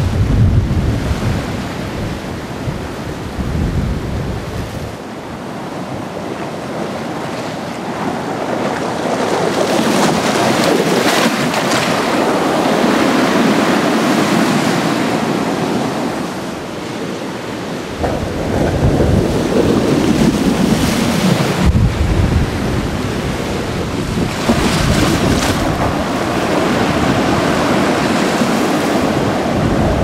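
Rough, storm-driven sea, whipped up by an approaching typhoon: waves surging and breaking continuously, swelling and easing. Strong wind gusts buffet the microphone with a low rumble at the start and again through the second half.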